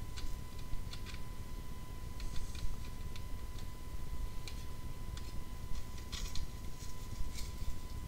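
Light metal clicks and rattles of double-wall gas vent pipe sections and an adjustable flue elbow being twisted and pushed together by hand, irregular, with a sharper cluster of clicks a little past the middle. The click is the sign of a section snapping into place.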